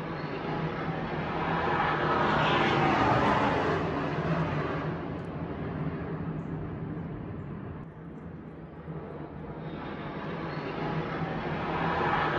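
Airplane passing overhead: a rushing engine noise that swells to its loudest about three seconds in, sweeping downward in pitch, then fades away. A second pass starts building near the end.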